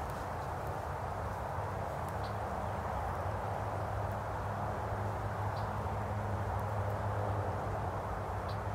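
Large honeybee swarm buzzing steadily around a hive box as it settles in, a dense, even hum.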